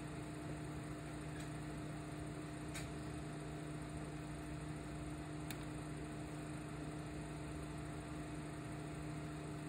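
Steady low background hum with an even hiss beneath it, the drone of a commercial kitchen, with a few faint ticks.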